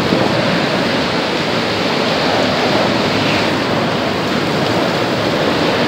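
Hurricane eyewall wind and driving rain: a loud, steady rush of noise with no letup.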